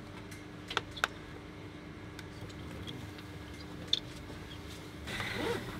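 Steady hum inside a stationary train carriage, with a few sharp clicks and small knocks as passengers handle their bags and belongings, the loudest clicks about a second in and near four seconds.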